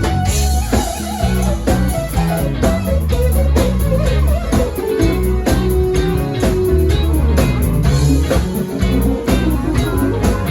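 Band music without singing: a guitar playing melodic lines over steady bass notes and a drum beat.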